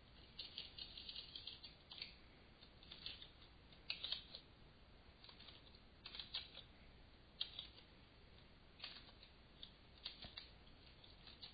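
Computer keyboard being typed on: faint key clicks in short, irregular bursts with brief pauses between them.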